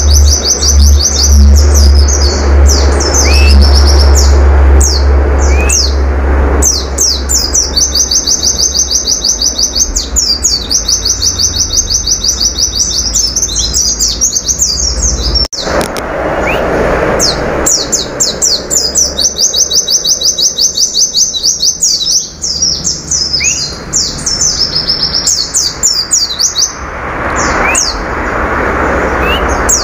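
Caged pleci (white-eye) singing a fast, high-pitched song of long runs of rapidly repeated notes and short trills, with hardly a pause. A steady low hum underneath stops about halfway through.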